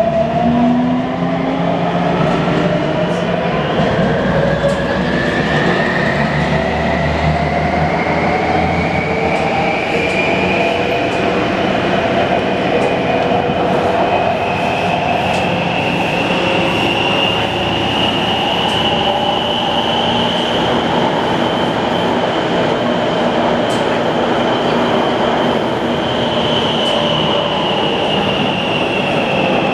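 Taipei Metro C321 refurbished train's inverter and traction motors whining under a steady running rumble. The whine rises steadily in pitch as the train picks up speed, levels off, and dips slightly near the end. The uploader flags the inverter noise as abnormal.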